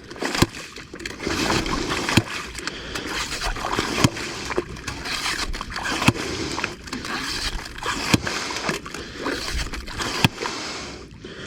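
Yabby pump (hand-operated bait suction pump) being worked in wet sand: sloshing and splattering of sucked-up sand and water, with irregular sharp knocks.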